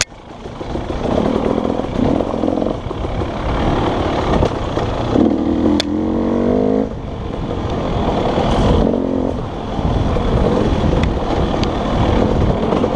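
Dirt bike engine running and revving on the trail, its note climbing sharply for a second or two midway as the throttle is opened.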